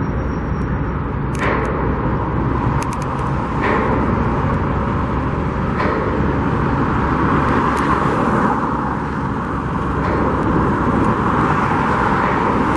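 Road traffic passing, a steady rush of tyres and engines that swells as vehicles go by, with a few faint clicks.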